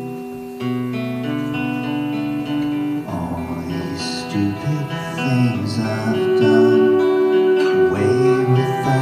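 Live band music: guitar chords ringing out, with the music turning fuller about three seconds in and a voice singing over it.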